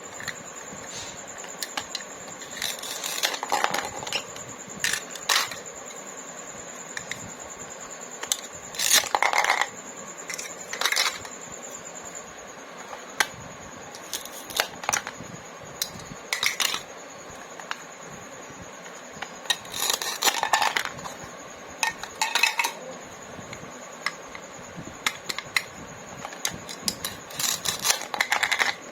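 Small plastic toy pieces being handled, tapped and set down, making irregular sharp clicks and clinks, some single and some in quick clusters.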